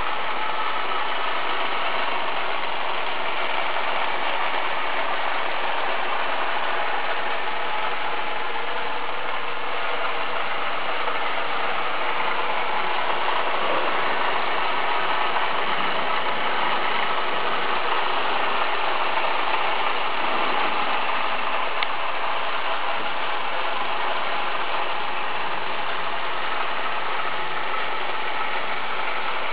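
The motor and gearing of an HO-scale model bobsleigh coaster running steadily, making a continuous mechanical noise with no change in level.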